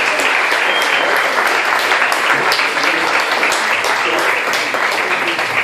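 Audience applauding: a dense, steady wash of hand clapping.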